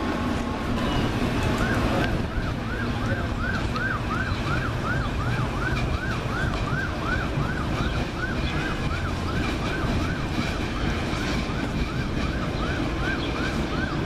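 Railroad warning bell ringing steadily, about two to three strokes a second, starting a couple of seconds in. It sounds over the low rumble of a commuter train pulling out of the station.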